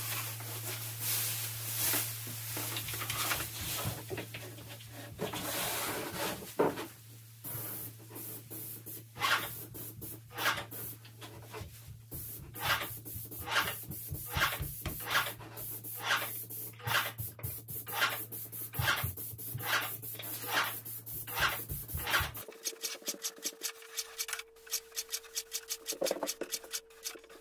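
Hand sanding of primed cabinet wood with a sanding sponge: repeated rubbing strokes, about two a second, sanding between coats. Underneath is a steady low machine hum that stops about three-quarters of the way through.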